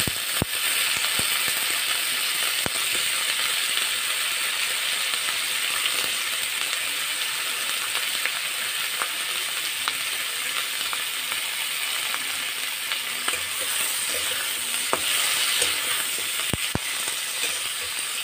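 Potato slices and cauliflower stalks sizzling steadily as they fry in hot oil in a karahi. A few sharp clicks come from a metal spatula against the pan, about half a second in, near three seconds and twice near the end.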